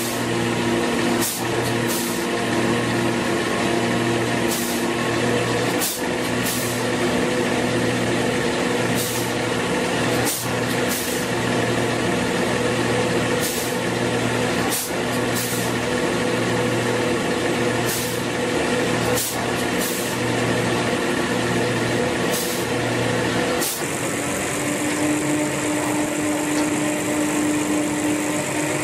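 A BAOSUO YD-PL600S toilet roll rewinder line running: a steady machine hum with several tones. Short hisses come every second or two at uneven intervals. About four-fifths of the way through, the hum changes pitch and the hisses stop.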